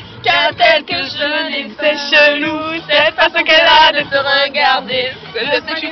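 Voices singing a song along with music, loud and continuous.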